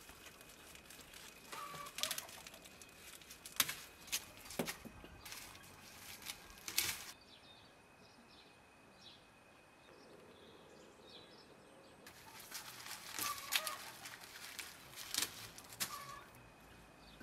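Dry onion skins rustling and crackling in quick bursts as red onions are pulled off a hanging braid and handled, with a quieter stretch in the middle where faint bird chirps are heard.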